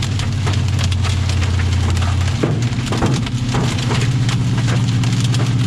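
Small hail, about pea size, pelting the roof and body of a moving vehicle: a fast, irregular clatter of sharp ticks over the steady drone of the engine and road, which shifts in pitch about halfway through.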